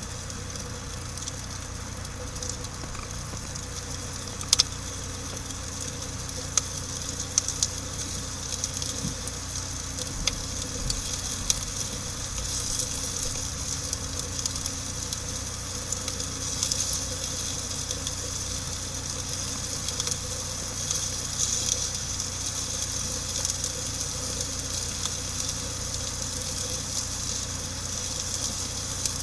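Campfire burning: a steady hiss with frequent small crackles and pops, a few sharper snaps now and then.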